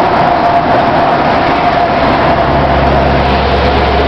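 Scania R620 truck's V8 engine and road noise heard from inside the cab while driving, a steady run with a constant whine over it; a deeper drone joins about halfway through.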